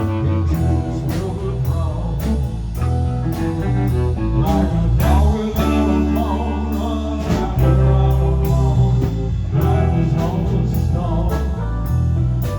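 Background music: a blues-rock song with guitar, bass, drums and a singing voice.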